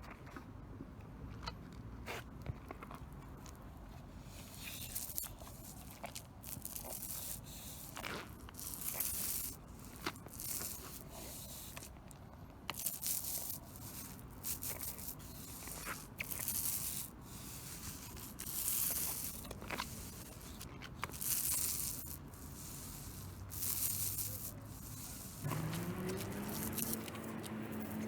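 Repeated scraping strokes, about one every two seconds, over a low steady hum. Near the end a rising motor tone joins in.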